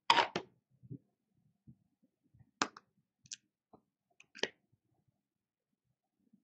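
A few scattered light clicks and knocks of a jar of stage blood being handled and its screw lid twisted off, the loudest clicks about two and a half and four and a half seconds in.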